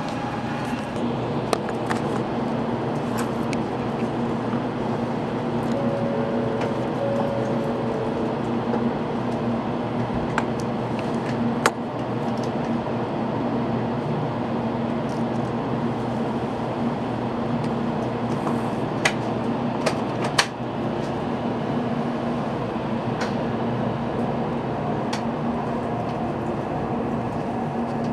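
Steady cabin noise inside a Shinkansen passenger car: an even rushing hum with a low droning tone under it. A few sharp clicks or knocks break through, one about twelve seconds in and two around twenty seconds in.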